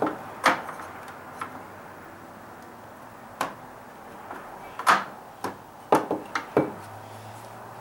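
Scattered sharp knocks and clicks, about eight of them and loudest about half a second in and around five and six seconds, as deck paver tiles are nudged and tapped into place with a flat pry bar against the edge flashing.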